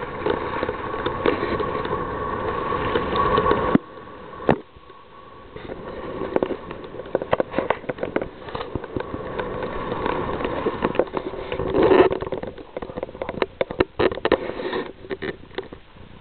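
Skis scraping and hissing over hard-packed snow, with wind rushing on the microphone during the descent. The noise drops off abruptly about four seconds in, then builds again with scattered knocks and crackles.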